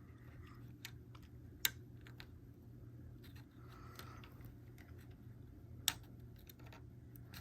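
Small plastic clicks and handling noises as a car radio's plastic part is pushed back into its clips, with two sharper clicks about two seconds in and near six seconds, over a steady low hum.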